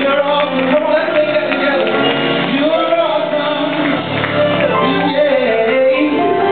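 Youth praise team singing a gospel praise song together into microphones, young voices over instrumental accompaniment.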